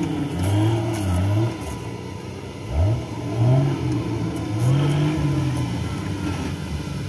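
Off-road buggy's engine revving up and down repeatedly as it climbs and turns over muddy mounds, with a sharp rise in revs about three seconds in.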